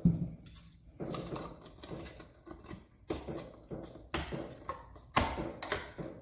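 Irregular knocks, clicks and rustling of handling, with five or so sharp knocks spread over a few seconds.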